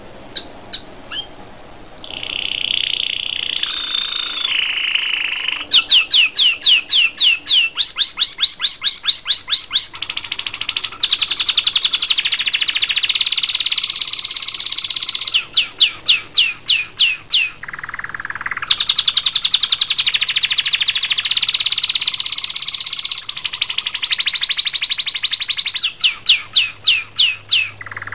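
Canary singing a long, loud song of rolling trills broken by runs of quick repeated sweeping notes, about five a second, several times through the song. It opens with a few short chirps.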